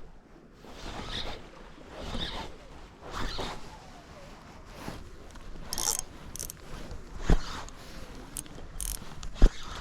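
Fishing reel being cranked and working against a hooked fish during the fight, with uneven mechanical whirring and clicking. Two sharp knocks, one about seven seconds in and a louder one near the end.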